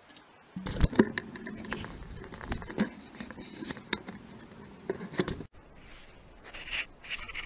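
Handling noise: irregular clicks, knocks and scraping of gloved hands working around a steel-mounted hydraulic valve block, with the sharpest knock about a second in. It stops abruptly about five and a half seconds in, after which only faint rustling remains.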